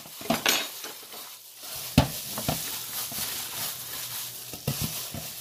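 Hands in plastic gloves squishing and turning egg roll filling of raw ground pork, shredded cabbage and carrot in a glass bowl, a moist squelching noise, with a few sharp clicks, the loudest about two seconds in.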